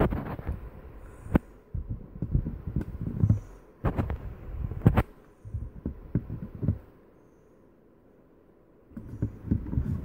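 Handling noise from a hand-held phone camera being moved and zoomed: irregular low thumps and rubbing against the microphone with a few sharp clicks, a short lull, then more rubbing near the end.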